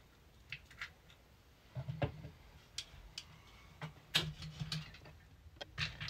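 Scattered light clicks and taps of hands handling a plastic robot vacuum chassis and a tool, with a few soft knocks.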